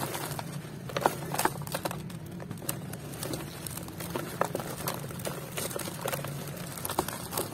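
Dry set white cement being crumbled by hand: irregular crunching and crackling as the block breaks apart and chunks and powder fall into a plastic tub.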